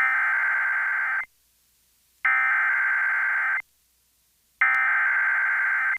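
Emergency Alert System SAME header: three bursts of shrill digital data tones, each a little over a second long, with about a second of silence between them. This coded header opens an alert, here a severe thunderstorm warning.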